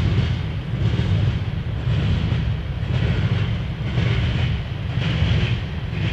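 Freight train of covered hopper cars rolling past: a steady low rumble with a rhythmic wheel clatter about once a second.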